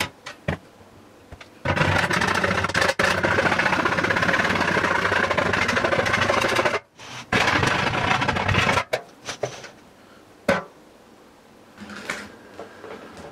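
A tool rasping hard against the cut edge of a hole in a pail lid, smoothing it, in two spells of about five seconds and one and a half seconds. Short clicks come before it and a few light knocks follow.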